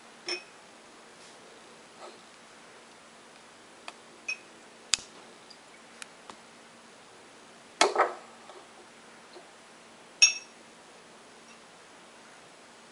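Scattered clinks and knocks of lab glassware and plastic-based graduated cylinders being handled and set down on a table. The loudest are a short clatter about eight seconds in and a ringing glass clink about ten seconds in.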